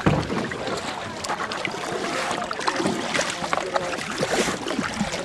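Paddling inflatable kayaks down a shallow, flowing river: paddles dipping and splashing, water rippling, and scattered small knocks and rustles, with a heavier knock at the very start.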